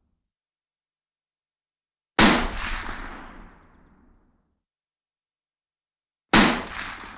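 Two single rifle shots, one about two seconds in and one about six seconds in, each a sharp crack followed by a long echo that fades over about two seconds.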